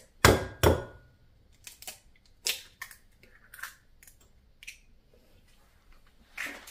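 Two sharp knocks of an egg against the rim of a glass cup, the glass ringing faintly after them, then scattered soft clicks and crackles as the eggshell is broken open over the cup.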